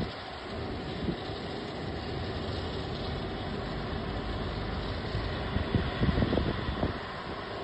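Steady engine rumble of airport apron machinery, with a few gusty low surges about six to seven seconds in.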